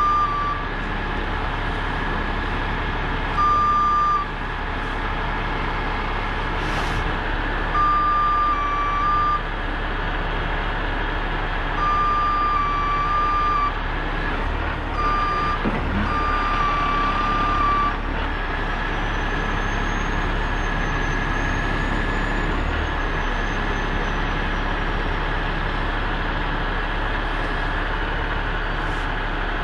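Heavy rotator tow truck running steadily while its winch is worked, with a single-pitched warning beep sounding in six separate spells, from half a second to about two seconds long, over the first eighteen seconds.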